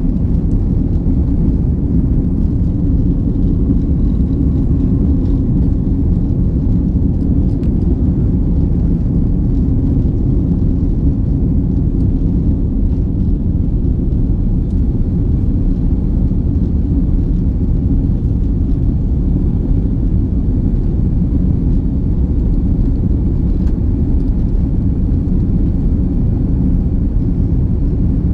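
Steady low rumble inside an airliner cabin during the climb after takeoff: jet engine and airflow noise heard from a window seat over the wing.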